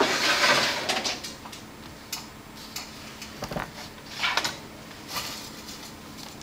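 Rustling, then scattered light clicks and taps with two shorter rustles: a graphing calculator being fetched and handled on a desk.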